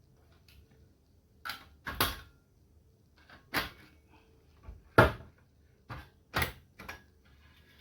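Plastic cover of an HP LaserJet 1020 laser printer being prised off, its snap-fit clips and panels clicking and knocking. About seven sharp clicks, the loudest about five seconds in.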